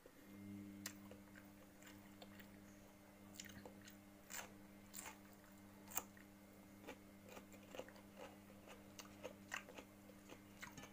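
Faint close-up biting and chewing of fresh cucumber slices, with scattered crisp crunching clicks, over a steady low hum.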